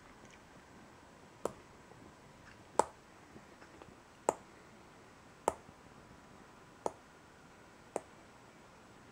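A smartphone being tapped: six sharp, light clicks, roughly one every second and a quarter, in a quiet small room.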